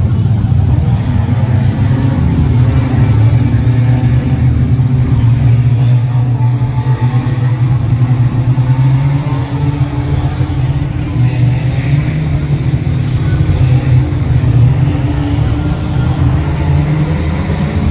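A pack of stock rod race cars lapping an oval track, their engines running hard together in a loud, steady drone.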